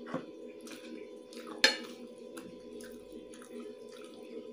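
Wet chewing and lip smacks of someone eating chicken biryani by hand, short clicks every half second or so, with one sharp, much louder click about a second and a half in. A steady low hum runs underneath.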